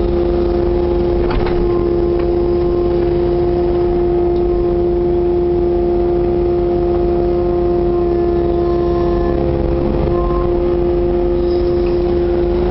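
Kubota KX080-4 excavator's diesel engine and hydraulics running steadily, heard from inside the cab, with a strong steady whine over the engine rumble. A short knock about a second and a half in, and near the end earth tipping out of the bucket into the dumper's skip.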